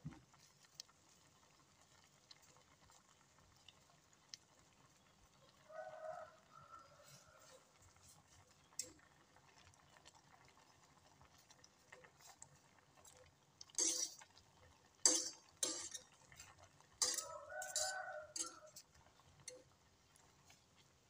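A utensil stirring in a stainless steel pot of boiling noodles and greens, with several sharp clinks against the pot in the second half. A short animal call sounds twice in the background, about a quarter of the way in and near the end.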